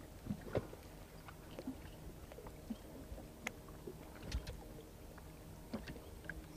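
Quiet small-boat sounds: scattered light knocks and ticks from the fishing rod and hull over a faint, steady low hum.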